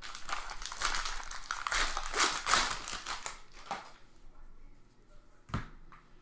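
Crinkling of a trading-card pack wrapper being torn open and handled, loudest about two seconds in, then dying away. A single sharp tap near the end.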